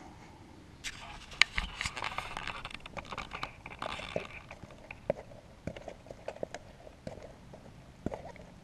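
Plastic bag crinkling and crackling as instant mashed-potato flakes are poured into a small metal camp pot, followed by scattered light clicks and taps as the pot is handled.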